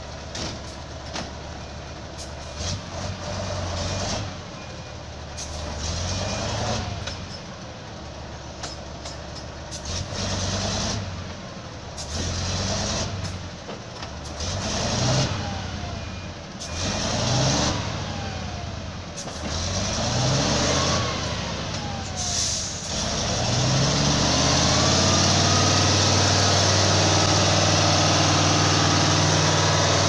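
Heavy diesel logging truck loaded with logs and stuck in mud, its engine revved hard again and again, each rev rising and falling, with clunks and knocks as the driver rocks it between forward and reverse to get free. Near the end it settles into one long steady high rev with a loud hiss.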